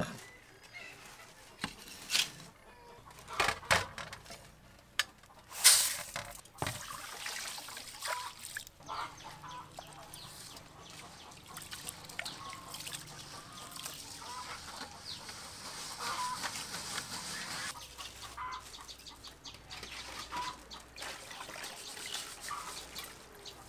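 Cleaver blade knocking on a wooden chopping board through garlic for the first few seconds. After that, hands swish and squeeze rice grains in water in a metal bowl. Chickens cluck in short calls in the background.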